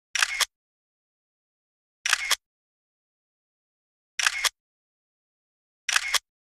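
A short, hissy sound effect, about a third of a second long, repeats four times, roughly every two seconds, with dead silence in between. It is a photo-slideshow transition effect, marking each change of picture.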